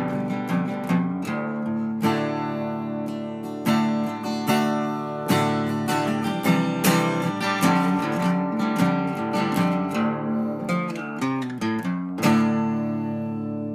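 Background music: an acoustic guitar picking notes and chords, with a last chord ringing out near the end.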